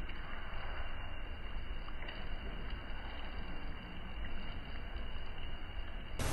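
Pot of tilapia-paste-stuffed bitter melon soup boiling, a steady bubbling.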